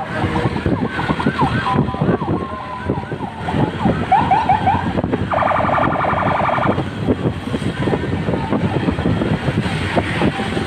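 Police car siren sounding in short sweeping yelps, switching to a rapid pulsing warble for about a second and a half mid-way, over steady road and engine noise from a moving vehicle.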